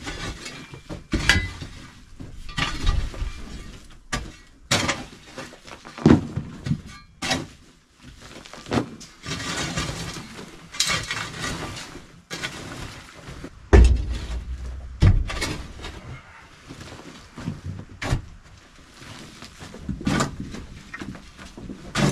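Steel shovel scraping and chopping into a packed floor of dirt and dried cow manure, and clods breaking as they are scooped and dropped. The strikes and scrapes come irregularly, a second or two apart, with a few heavier thumps.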